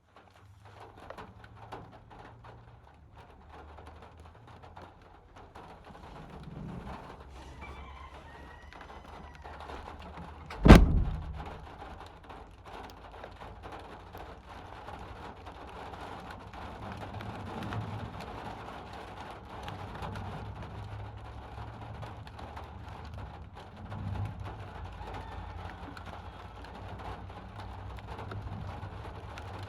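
Steady rainfall with one sharp, very loud thunderclap about ten seconds in that dies away within a second, and softer low rumbles of thunder at other moments. A bird chirps briefly just before the clap.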